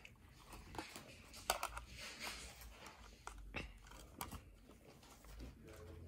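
Irregular small clicks and knocks of a screwdriver and hands working at the plastic housing of a Wheelock Exceeder strobe to open it.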